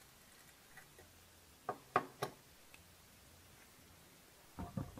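Hands handling a leather card holder on a cutting mat: three quick knocks about two seconds in, and two more near the end.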